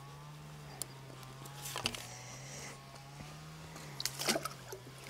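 A few soft knocks and rustles of fishing tackle being handled over a low steady hum.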